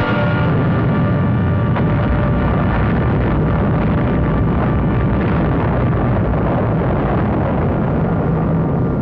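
A loud, continuous explosion sound effect standing for the atomic bomb blast over Hiroshima, with a few held tones mixed in during the first couple of seconds.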